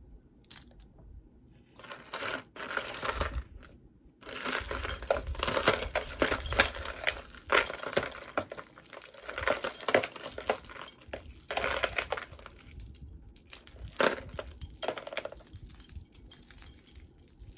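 Jewelry being handled: crinkling and rustling with many small clicks and clinks, starting about two seconds in, with short pauses and fading near the end.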